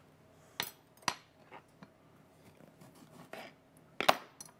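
Kitchen clatter: a handful of sharp clicks and knocks of utensils and dishes on a counter, the loudest cluster about four seconds in.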